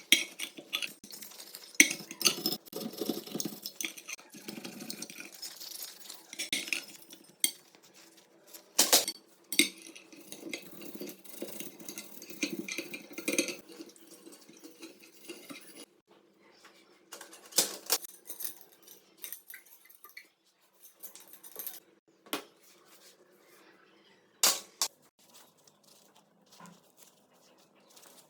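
Metal parts and hand tools clinking, scraping and knocking against each other on a workbench, busy for the first half and sparser after, with a few sharp metallic knocks standing out.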